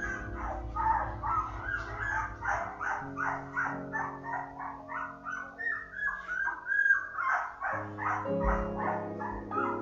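Newborn sprocker spaniel puppies squeaking and whimpering, short high cries coming several a second, over background music with sustained chords.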